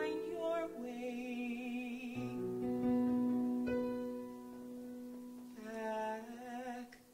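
Slow musical-theatre ballad: soft instrumental accompaniment of held chords under long sustained notes with vibrato, the music dying away near the end.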